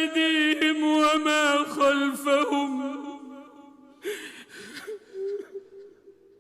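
A man's voice in melodic Quran recitation holds a long, ornamented note at the end of a verse, fading out about three seconds in. After that come short breath sounds and faint vocal traces.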